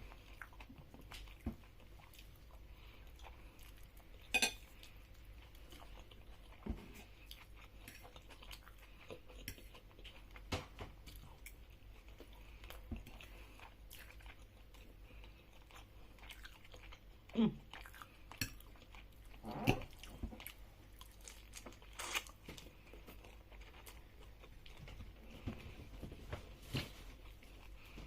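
A person chewing and biting food close to the microphone, with scattered light clicks and knocks of cutlery against dishes.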